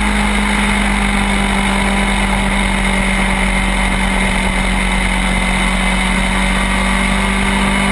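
Two-stroke shifter kart engine heard from the onboard camera, running at a steady, unchanging pitch with no gear changes, over a steady rush of wind and road noise on the microphone.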